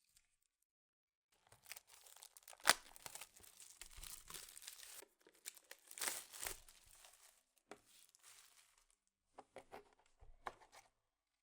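Packaging being opened and handled: crinkling and tearing of wrapping, with one sharp snap about three seconds in and a few short clicks and rustles near the end.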